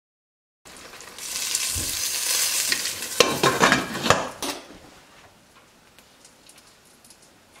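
A live charcoal ember in a foil cup in the curry pot sizzles as fat is spooned onto it, the dhungar way of smoking a dish, hissing for about three seconds. Near the end of the hiss come a few sharp clinks as a glass lid goes onto the steel pot, then only faint crackling.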